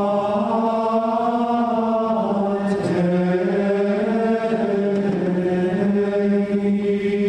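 Men's voices chanting in long held notes, with a brief break in the line about three seconds in.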